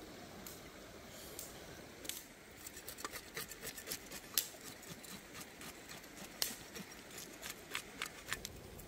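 A run of sharp, irregular clicks, a few a second, beginning about two seconds in, over faint steady background noise.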